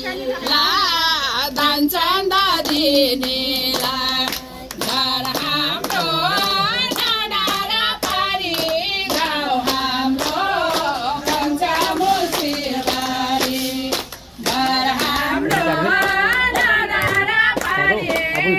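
A woman singing a Nepali folk song in a high voice, with steady hand-clapping keeping time. The voice breaks off briefly about three-quarters of the way through, then resumes.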